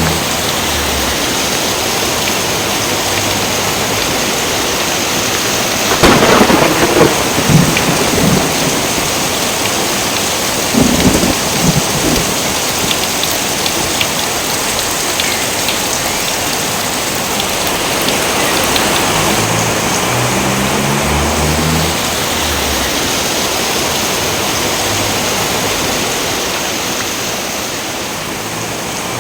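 Steady heavy rain, with a sudden thunderclap about six seconds in that rumbles on for a couple of seconds, and a second roll of thunder a few seconds later.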